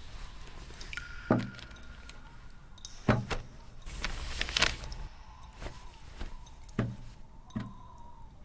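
A carved seal set down and pressed onto paper on a wooden table: four dull knocks, the last two under a second apart, with a brief rustle between them and a faint held tone in the background.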